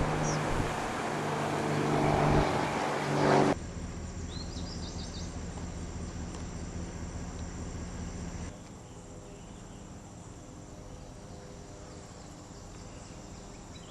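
A motor running amid loud rushing noise, cut off abruptly a few seconds in. Quiet outdoor ambience with a few short bird chirps follows.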